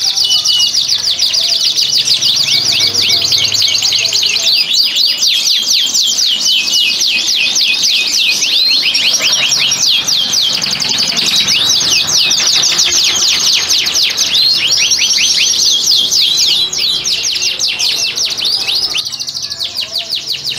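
Domestic canary song: long, loud runs of rapid high trills, each made of quick sweeping notes repeated many times a second, thinning out with a brief break near the end.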